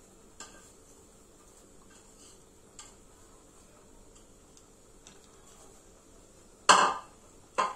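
Drumstick leaves being dropped into a pan, with a few faint clicks, then two short loud knocks close together near the end.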